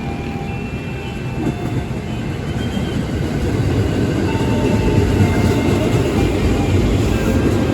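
Train running past on the rails: a steady low rumble of wheels and running gear that grows gradually louder, with short high squealing tones from the wheels scattered through it.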